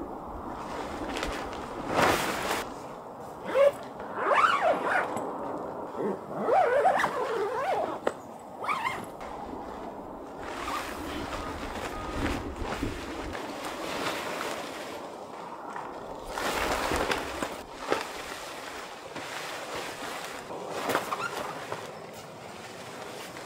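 Fabric and clear vinyl panels of a pop-up dome tent rustling and crinkling as it is collapsed and folded, in uneven swells, with a few short squeaky sounds about four to eight seconds in.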